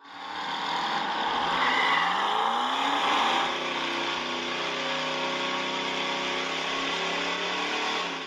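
Car engine sound effect laid over the picture: it starts abruptly and revs up for the first three seconds or so, then settles into a steady idle.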